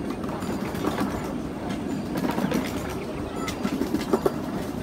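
Miniature ride-on train rolling along its track, heard from aboard: a steady rumble with the wheels clicking over the rail joints, and a few sharper clacks near the end.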